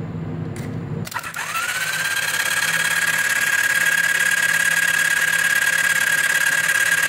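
A low rumble, then about a second in a click as the Honda CB250N SuperDream's electric starter motor is switched on, fed straight from a booster pack. Its whine rises quickly to a steady high pitch as it cranks the engine over, with the spark plugs out and clamped to earth, for an ignition spark test.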